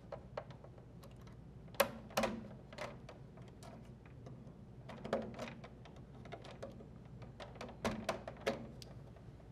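Small sharp clicks and taps of needle-nose pliers and spade connectors being pushed onto the terminals of a dryer timer, with a few louder snaps scattered through.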